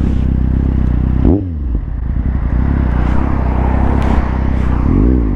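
Kawasaki Z750R inline-four running through a Leo Vince SBK aftermarket exhaust while riding. The revs drop about a second in, then rise and fall again near the end.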